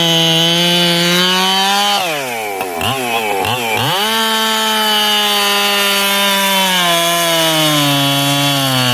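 Echo CS-7310 two-stroke chainsaw, its carburetor modified with thinned throttle shafts and a cleaned-up venturi, running near full revs. About two seconds in, the revs drop sharply and surge several times before climbing back to full speed. They sag slowly again near the end.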